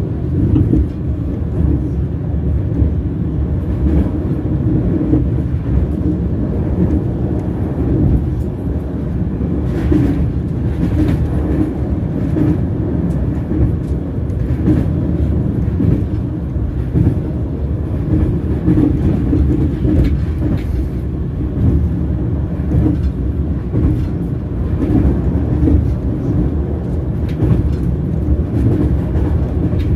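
Train wheels rolling on the rails: a steady low rumble with scattered sharper clicks and knocks.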